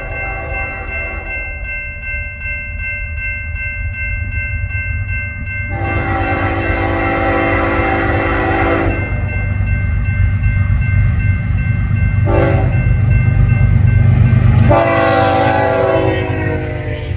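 BNSF freight locomotive's multi-chime air horn sounding in a long, long, short, long pattern, the standard grade-crossing warning: one blast ends about a second in, a long blast runs from about six to nine seconds, a short one comes around twelve seconds, and a final long one comes near the end. Beneath it, the low rumble of the diesel locomotive and rolling wheels grows louder as the train passes, with the loaded covered hopper cars rolling by at the end.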